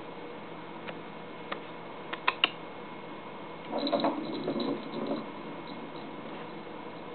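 Hard plastic treat-dispensing toy pushed across a wooden floor by a cat's paw: a few sharp clicks and knocks, then about a second and a half of rattling and rolling clatter around the middle, with treats shaking inside.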